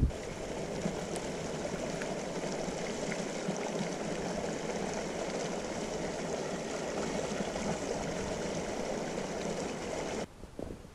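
Small mountain stream running between snowbanks: a steady sound of flowing water that cuts off suddenly near the end.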